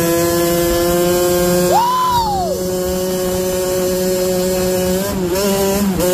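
A 1989 Kawasaki KX80's single-cylinder two-stroke engine running at speed with a high buzzing note. The pitch briefly rises and falls about two seconds in, and dips twice near the end as the throttle changes.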